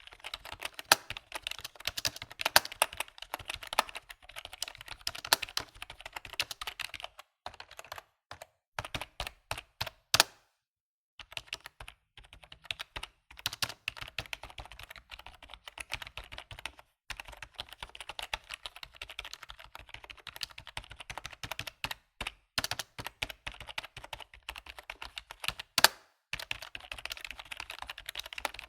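Computer keyboard being typed on in quick runs of key clicks, with a brief pause about ten seconds in and a few heavier strokes now and then.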